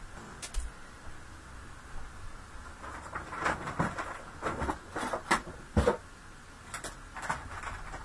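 Off-camera rummaging while searching for craft supplies: scattered clicks and knocks of things being moved and handled. They begin about three seconds in, and the loudest knocks come a little past halfway.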